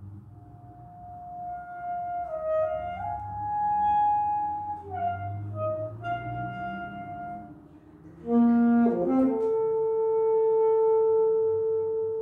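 Saxophone playing a slow melody of long held notes. About eight seconds in it comes in louder with a quick run down to a low note, then settles on one long held note.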